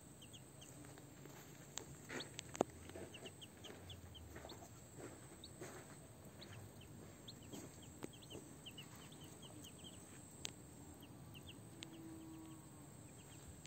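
Muscovy ducklings and a chick peeping faintly, short high peeps in quick little runs, with a few sharp clicks around two seconds in.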